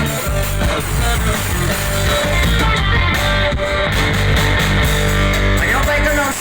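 Band music with guitar, playing on at full level.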